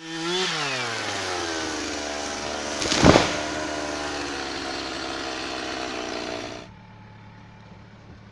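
An engine running, its pitch dropping in the first second and then holding steady, with one loud thump about three seconds in. It cuts off suddenly at about seven seconds, leaving a faint low hum.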